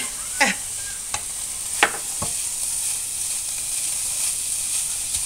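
Ground beef sizzling steadily as it browns in its own fat in a nonstick pan, with no oil added, while a spatula stirs it. A few sharp clicks and scrapes come in the first couple of seconds.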